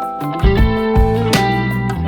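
Background music: a guitar-led track over bass, with a few sharp drum hits.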